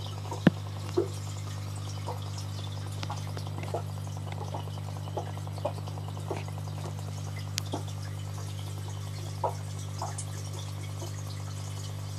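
Aquarium filter running: a steady low hum under water trickling, with irregular drips and small plops, the sharpest about half a second in.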